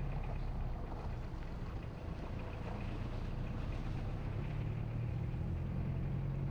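A vehicle engine running steadily, a low, even hum with road or motor noise over it.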